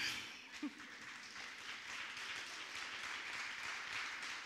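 Audience applauding, a dense steady clapping that starts abruptly.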